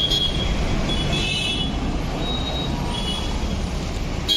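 Busy road traffic: a steady low engine rumble with several short, high-pitched horn toots from passing vehicles, near the start, about a second in, and around two and three seconds in.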